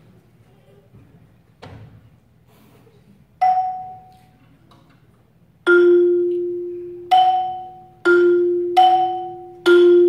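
Marimba struck with mallets: a single note about three and a half seconds in, then from about six seconds a slow sequence of notes, a low note recurring with higher notes between, each ringing on after the strike.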